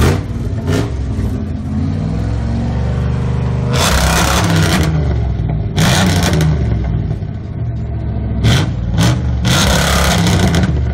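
Pontiac Firebird engine idling with a low rumble through its dual exhaust, revved hard in short bursts several times: once about four seconds in, again about six seconds in, then a quick run of blips near the end.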